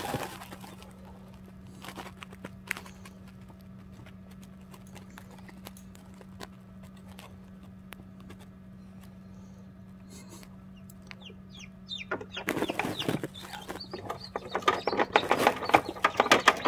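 Newly hatched Ameraucana chicks peeping inside an incubator. A few scattered faint peeps and clicks come first, then rapid, loud peeping through the last few seconds, all over the incubator's steady low hum.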